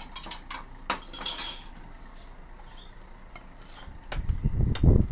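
Spoons and ceramic plates clinking and scraping on a table in a few short knocks, then from about four seconds in a loud low rumble of handling noise as the phone camera is picked up and moved.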